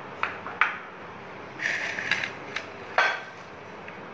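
A few sharp clinks of ceramic bowls and plates knocking together and being set down, with a short rustling scrape in between, as sliced onion is tipped onto a plate of ground lentil mix and worked in by hand. The last clink, about three seconds in, is the loudest.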